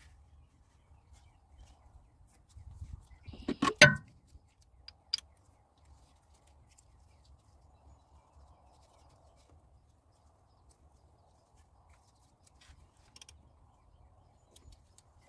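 Work handling sounds during an oil change: a brief rustle, then a loud clunk about four seconds in, a sharp click a second later, and faint quiet handling for the rest.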